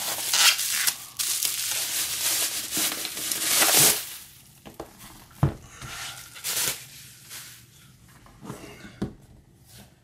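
Plastic bubble wrap rustling and crinkling as it is pulled off a book-sized parcel, loudest in the first four seconds. A single sharp knock comes about halfway through, followed by lighter scattered rustles.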